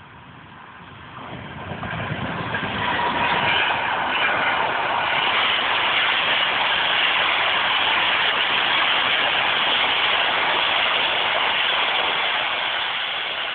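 NSB El 18 electric locomotive hauling B5 passenger carriages passing close by. The rumble builds over the first few seconds into a loud, steady rush of wheels on rails that eases slightly near the end.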